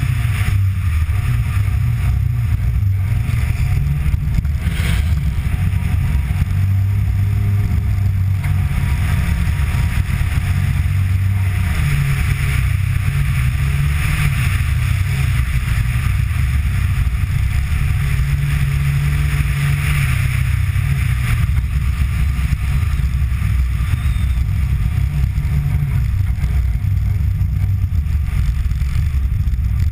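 Rally car driving at speed on a snowy track: a steady, loud, low engine and road rumble, with the pitch shifting a little as the engine speed varies.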